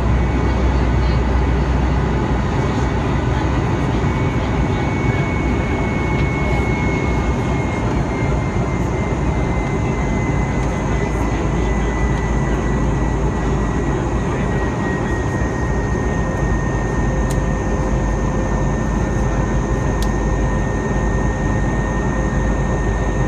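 Cabin noise inside an Airbus A320 climbing after takeoff: a steady rush of air and engine rumble, with a thin high whine that slowly falls in pitch.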